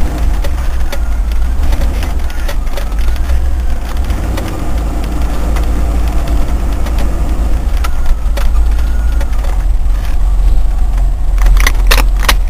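Range Rover's 3.5-litre Rover V8 running, a steady low rumble, with a few sharp clicks or knocks near the end.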